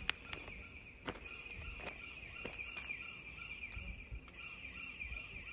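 A steady chorus of high chirping from wildlife in the trees, with scattered crunching steps on gravel.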